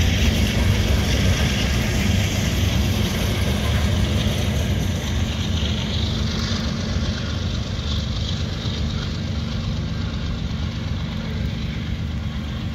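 Freight train's boxcars rolling past on the rails, a steady wheel-and-rail noise that slowly fades as the tail end of the train moves away.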